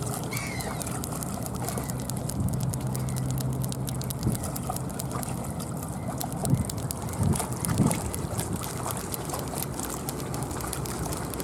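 River water lapping and trickling at the shore, with a low steady hum for a few seconds near the start and a few short, dull knocks in the second half.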